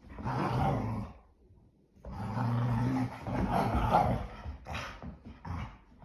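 English springer spaniels play-growling as they wrestle: a long growl at the start, a second longer one from about two seconds in, then shorter growls near the end.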